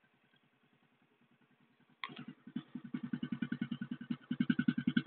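Euro X125 motorcycle engine idling through its original exhaust pipe with a quick, even beat. About two seconds in the sound becomes suddenly much louder and stays at that level.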